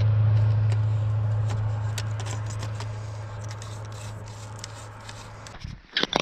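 A steady low hum that fades slowly and stops shortly before the end, with light clicks and scrapes as a fishing rod is handled.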